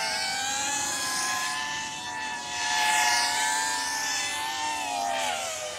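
FPV quadcopter's motors and propellers whining as it flies low overhead, a whine of several tones that wavers with the throttle and sinks in pitch near the end.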